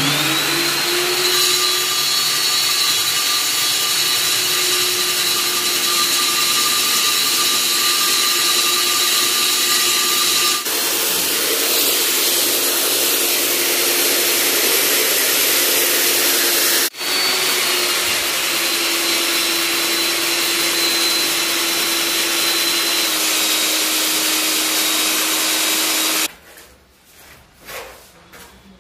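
Rig-mounted electric diamond core drill spinning up and then running steadily with a whine as its core bit cuts into a reinforced concrete wall. The sound breaks off briefly twice and stops shortly before the end.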